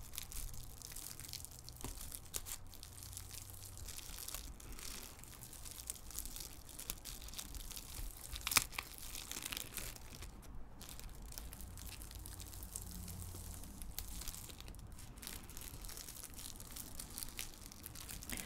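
Plastic shrink-wrap crinkling and tearing as it is peeled off a cardboard jigsaw puzzle box, with one sharper crackle about halfway through.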